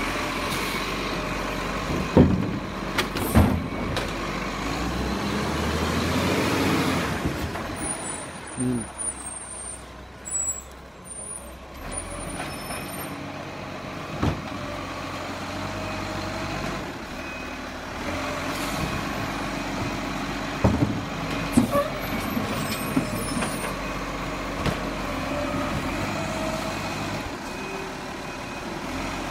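Rubbish truck running at the kerb, with several sharp bangs and clanks as bins are handled, and a hiss of air brakes.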